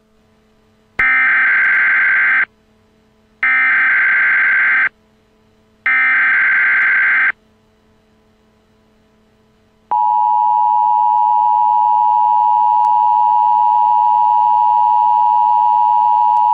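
Emergency Alert System tones: three short bursts of SAME header data, each about a second and a half with a second's gap between them. About ten seconds in, the steady two-tone EAS attention signal (853 and 960 Hz together) starts and holds.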